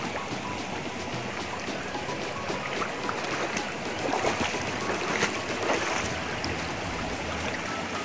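Mountain stream running over rocks: a steady rushing of water, with a few small clicks scattered through it.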